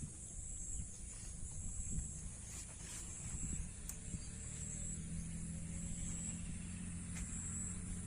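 Insects chirping in repeated high pulses over a low rumble; from about halfway a steady low engine hum comes in, like a vehicle drawing near.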